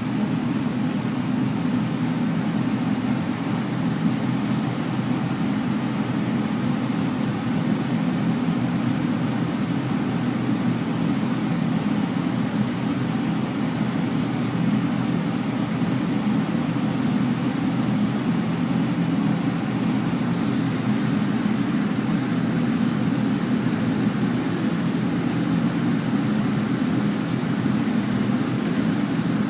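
Steady low mechanical hum with several held low tones, unchanging throughout.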